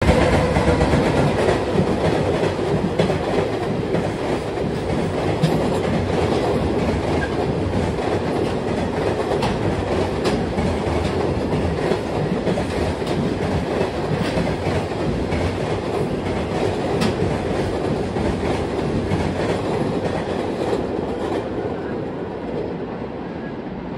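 A freight train of JR Freight container wagons rolling past, with a steady rumble and the clickety-clack of wheels over rail joints. It fades over the last couple of seconds as the tail of the train draws away.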